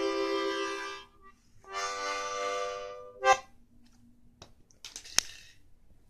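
Music: a sustained chord that fades out about a second in, then a second, shorter chord, followed by a sharp click and a few faint knocks and clicks.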